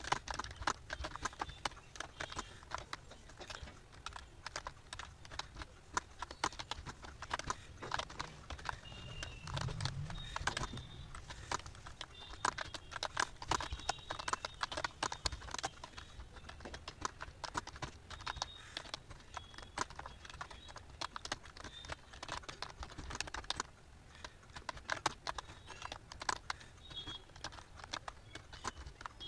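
Fast, continuous typing on a computer keyboard: a rapid, uneven stream of key clicks.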